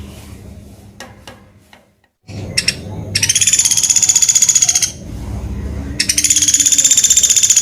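Pelatuk beras woodpecker giving two fast, rattling trills of about two seconds each, the second starting about a second after the first ends, with a few sharp clicks before them.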